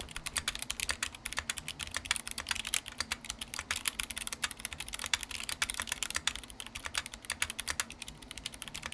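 Typing sound test on a Massdrop ALT High Profile mechanical keyboard with Zealios V2 tactile switches and GMK keycaps: a fast, continuous, uneven run of keystroke clacks.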